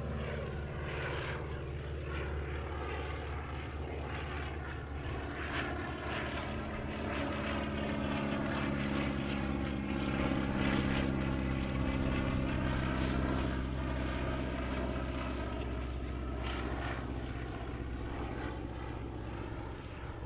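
Focke-Wulf Fw 44 J Stieglitz biplane's propeller engine running steadily as it flies past, growing louder toward the middle and fading near the end.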